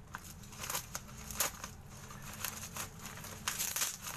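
Bubble-wrap packaging being pulled apart and crinkled by hand as a parcel is opened: irregular crackling rustles, with a louder flurry near the end.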